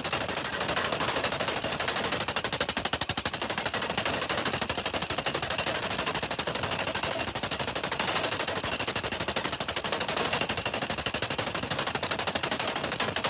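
A jackhammer mounted in a custom-built wooden pounding rig hammering continuously on a black ash log in rapid, even blows. The pounding crushes the wood between the annual growth rings so the rings separate into basketry splints.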